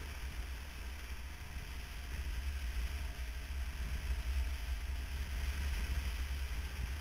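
Wind rushing over the microphone of a camera riding on a motorcycle at road speed: a steady low rumble with hiss, and the motorcycle's running noise blended in beneath it. It grows a little louder in the middle.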